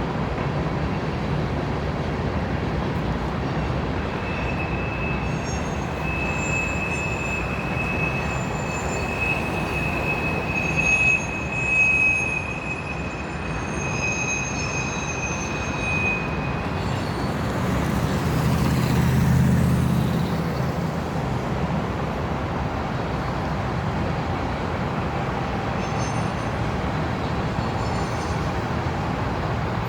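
Freight train of grain hopper cars rolling past, its wheels squealing on the curves in a steady high whine for about twelve seconds from a few seconds in. A deeper rumble swells briefly past the middle, then the steady rolling noise carries on.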